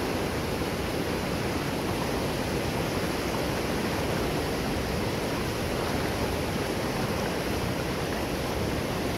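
Water rushing steadily over a concrete dam spillway, a constant even rush of white water.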